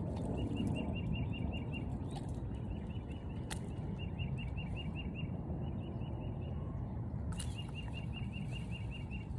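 A bird chirping in quick runs of evenly spaced high notes, about eight a second, repeated several times, over a steady low outdoor rumble, with two sharp clicks.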